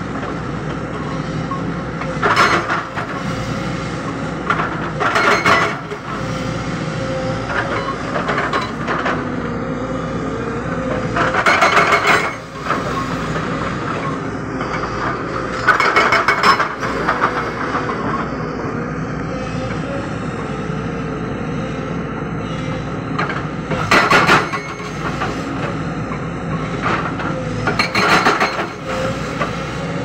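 JCB 220 tracked excavator's engine running steadily while its hydraulic rock breaker hammers in short bursts of rapid blows, repeated every few seconds, breaking rock.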